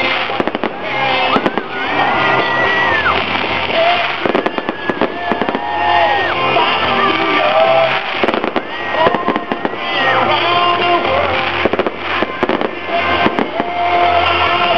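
Aerial fireworks shells going off with many irregular sharp bangs, over loud music with a held melody and a steady bass line.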